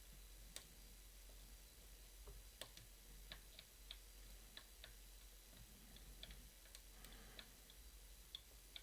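Faint, irregular small metallic clicks of a hook pick and tension wrench working the pins inside a challenge lock's keyway.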